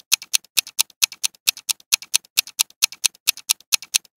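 Clock-ticking sound effect timing the answer countdown: an even, quick tick-tock of about four sharp ticks a second.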